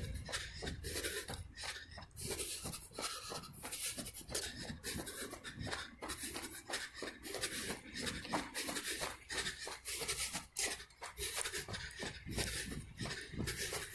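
A runner's footsteps on a dirt trail, a quick, even run of scuffs and thuds, with hard breathing and the scratchy rubbing of a hand-held phone against its microphone.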